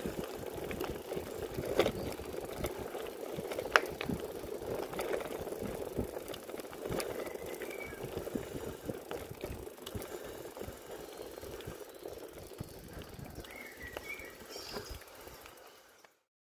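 Mountain bike rolling over a dirt and gravel forest track: tyre noise with the bike rattling, and two sharp knocks over bumps about two and four seconds in. It gets quieter as the bike slows to a stop, and the sound cuts off just before the end.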